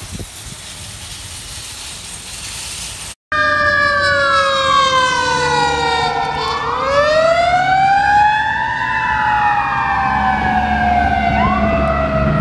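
Fire truck siren: a slow wail whose several overlapping tones rise and fall over a few seconds each, over the low rumble of the truck's engine. It starts about three seconds in, after a stretch of steady background noise and a brief dropout.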